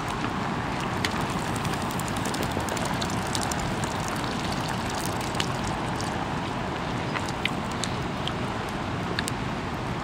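Steady rushing of a mountain stream, with scattered sharp crackles from a wood campfire.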